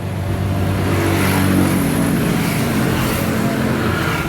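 Honda XRM125 single-cylinder four-stroke engine running, picking up revs about a second in and holding them before easing back near the end.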